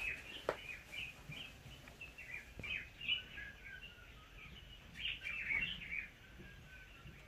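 Birds chirping: a run of many short, high calls, fairly faint, that thins out towards the end.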